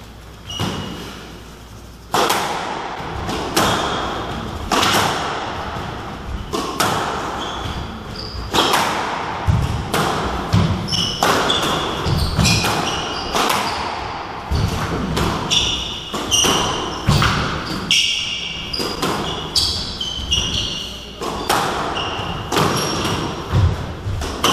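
Squash rally: the ball smacks off rackets and the court walls about once a second, starting about two seconds in, each hit ringing briefly in the court. Short high squeaks of court shoes on the wooden floor come between the hits.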